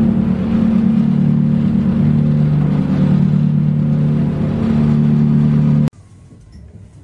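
A boat's engine running steadily while the boat is underway, heard from inside its cabin as a loud, even drone. The drone cuts off suddenly about six seconds in, leaving only a faint background.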